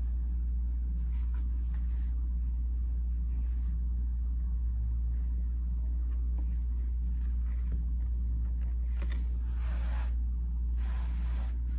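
A steady low hum, with two faint brushing rustles near the end as embroidery thread is drawn through the fabric.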